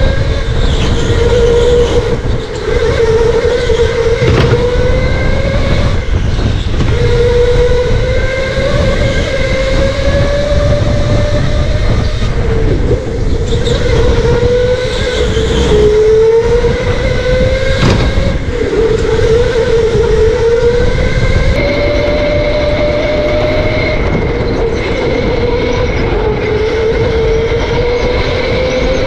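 Electric go-kart motor whining under the driver. Its pitch climbs as the kart accelerates and drops each time it lifts for a corner, over and over, with a low rumble underneath.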